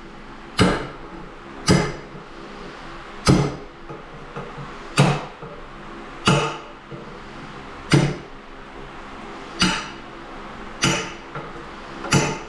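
About nine sharp cracks or knocks on ceramic tile, one roughly every second and a half, each with a short ring: small pieces of hard tile being broken away to shape a hole that has been back-cut with a grinder.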